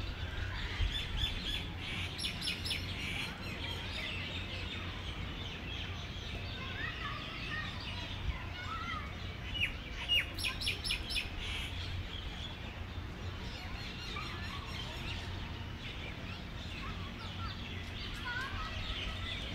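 Birds chirping and twittering, with two quick runs of rapid chirps, over a low steady background rumble.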